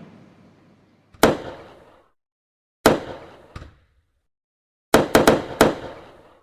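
Fireworks going off: sharp bangs, each fading away over about a second. One comes about a second in, another near three seconds with a smaller crack after it, then a rapid cluster of four bangs about five seconds in.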